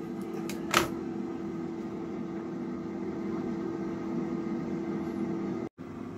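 Cosori air fryer running, its fan making a steady hum with a constant tone, with a single sharp click a little under a second in.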